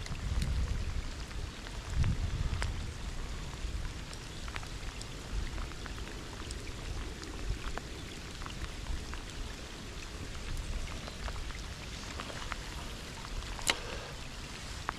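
Rain falling, with many separate drops tapping close by. A low rumble in the first few seconds, and a single sharp click near the end.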